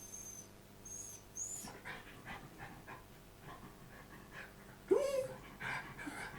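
A frightened dog whimpering: three brief high squeaky whines, then quick panting breaths, then a sharp yelping bark about five seconds in, the loudest sound. The dog is distressed by the sound of a storm.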